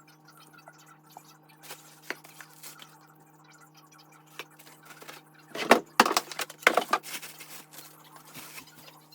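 Unboxing handling: scattered light clicks and taps, then a short cluster of louder rustling and knocks about six seconds in, over a faint steady hum.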